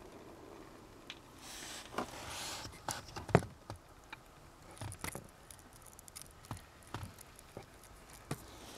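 Scattered light clicks and knocks with a couple of brief rustles, the loudest knock about a third of the way in.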